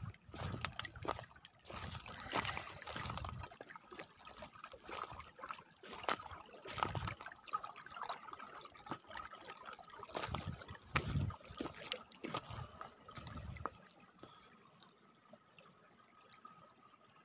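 Shallow mountain stream trickling over stones between sheets of ice, with small clicks through it. Irregular bursts of low rumble come and go, then stop near the end.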